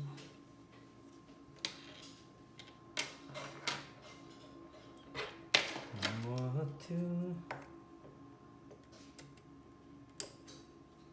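Scattered sharp clicks and taps of small tools and tiny parts handled on a workbench during a phone screen repair, with a brief low murmured voice about six seconds in.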